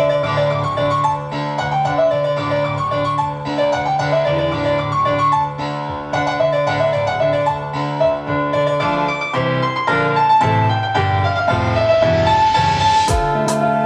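Instrumental dancehall backing track led by a piano melody over a steady bass line. A rising swoosh builds over the last couple of seconds and ends in sharp hits.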